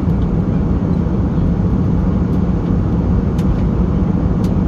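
Steady loud cabin noise inside an Airbus A320neo in flight, the jet engines and rushing air making a deep even rumble with a hum underneath. Two faint clicks come near the end.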